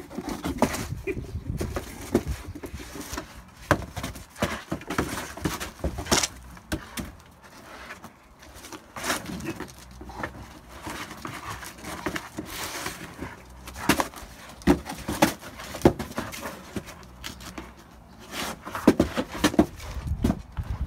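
A chocolate Labrador worrying a cardboard box: irregular crumpling, flapping and scraping of cardboard dragged over stone paving, with sharp knocks and scuffs here and there. The knocks come thickest about two-thirds of the way through and again near the end.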